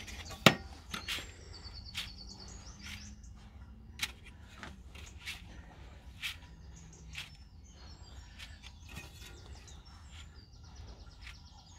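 Hands digging a hole in sand inside a galvanised metal dustbin: gritty scrapes and scattered knocks, with one sharp knock about half a second in. Birds chirp in the background, with quick trills near the start and again near the end.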